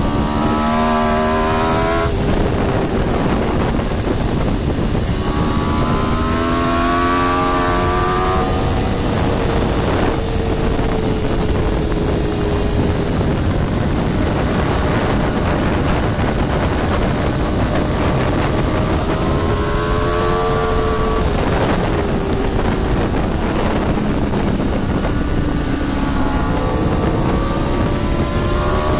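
Aprilia RSV4's V4 engine heard from onboard at track speed, its pitch climbing in several hard pulls with breaks and falls between them, under heavy wind rush on the microphone.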